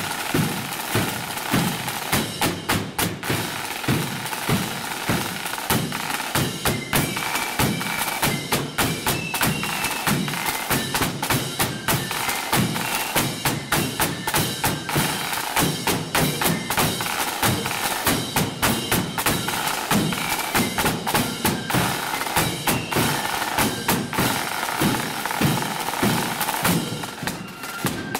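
Marching band's snare drums, clash cymbals and bass drum playing a steady marching beat with rolls, the strokes dense and regular.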